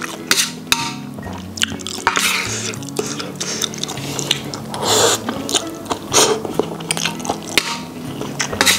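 Close-up mouth sounds of a person eating spicy instant noodles: wet chewing and lip smacks with many short clicks, and a noodle slurp about five seconds in. Background music with a steady low line plays underneath.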